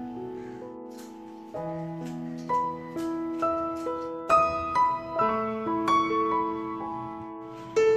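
Background piano music: a melody of held notes, getting louder about a second and a half in.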